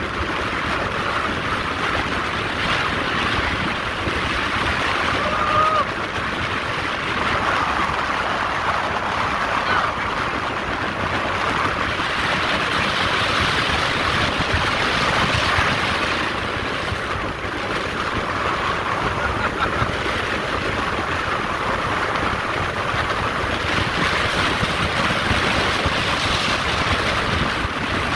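Steady rushing noise of a boat underway: water moving past the hull and wind over the microphone.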